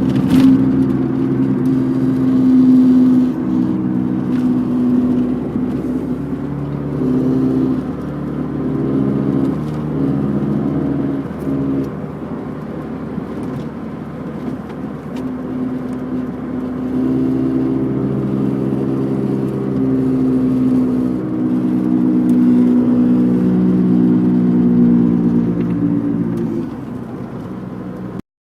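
1991 MG Maestro 2.0i being driven, its engine running under a loud, constant humming whir that grows louder with road speed. The hum deepens in left turns and goes in right turns, a pattern typical of a worn wheel bearing.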